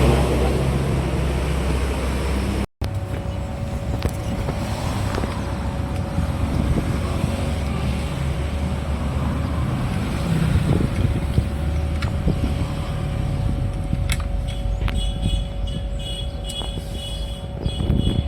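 Truck engine running steadily, cut off by a brief dropout about three seconds in, then continuing.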